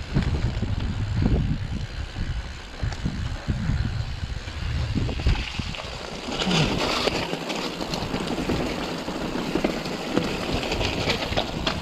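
Mountain bike riding over a loose, rocky slate track: tyres crunching over stones and the bike rattling, with many small clicks. Wind buffets the camera microphone for the first half, easing about six seconds in as the crunching gets louder.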